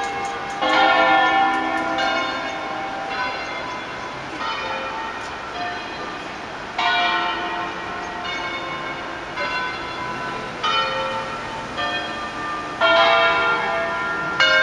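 Church bells of the Basilica of Sant'Anastasia in Verona, rung full-circle in the Veronese system for a solemn concert. About a dozen single strikes of differently pitched bells follow one another at uneven gaps of one to two seconds, each note ringing on into the next.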